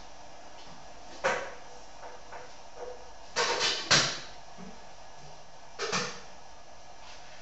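A few sharp knocks and clicks over a steady faint hiss: one about a second in, a quick run of three around three and a half to four seconds in (the loudest), and a double knock near six seconds.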